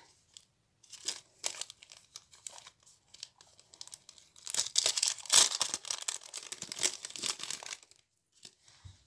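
Thin plastic packet of fishing wire leaders crinkling and tearing as it is worked open by hand, in irregular crackles that grow densest and loudest for a few seconds from about halfway through.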